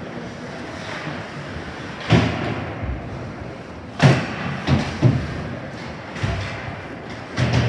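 Ice hockey rink boards and glass banging: five sudden heavy thuds with a ringing echo, the loudest about four seconds in, over the steady noise of play on the ice.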